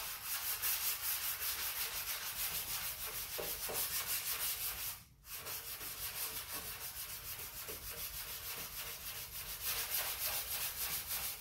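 Hand block sanding of 2K high build primer on a car fender with 400-grit paper: quick back-and-forth rubbing strokes, with a brief pause about halfway. The block-out leaves the primer level and feathered ahead of sealer.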